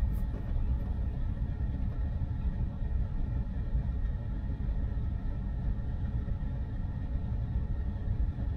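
Steady low rumble of passing traffic heard from inside the cabin of a stopped electric car, with a faint steady hum underneath.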